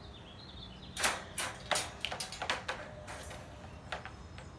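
Metal wire dog crate door being unlatched and swung open: a run of sharp metallic clicks and rattles, the loudest about a second in.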